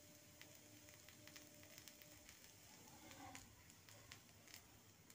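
Near silence, with faint scattered crackles from a dosa cooking on a hot griddle.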